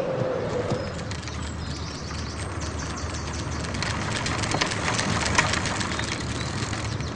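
A bicycle being ridden: a stream of light clicks and rattles from the chain and wheels over a low steady hum, busiest about four to six seconds in. A steady tone at the very start fades out within the first second.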